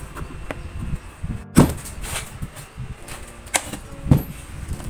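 Handling clunks and knocks as a round metal housing with a plastic part is turned over and moved about: one loud knock about a second and a half in and two sharper ones near the end, with scraping between.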